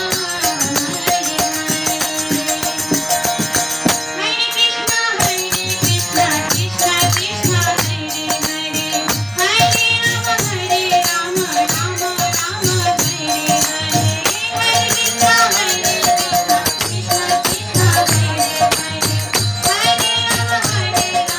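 A woman singing a Bengali devotional bhajan kirtan into a microphone, her melody wavering and ornamented, over steady held accompaniment tones, a regular low drum beat and jingling hand percussion. The drum drops out for about a second around four seconds in, then resumes.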